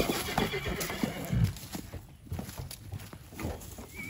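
Pigs squealing and grunting: a thin high squeal in the first second, with irregular knocks and thumps through the rest.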